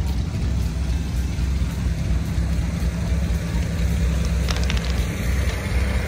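Monster truck's engine idling, a steady low rumble.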